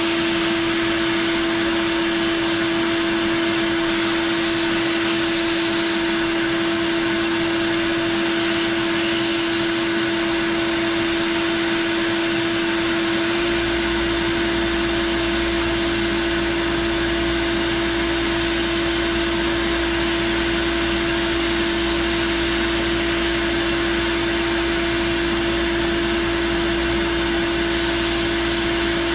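Shop vacuum running on a sandblasting setup: a steady motor whine over the continuous hiss of the blasting. About halfway through, a low rumble sets in underneath.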